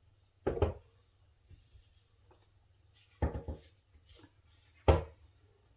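Three dull knocks, the loudest near the end: a wooden-framed stretched canvas bumping on the table as it is tilted and set down by hand.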